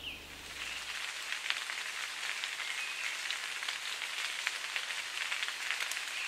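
Rain falling steadily on forest leaves: an even hiss dotted with many small drop hits.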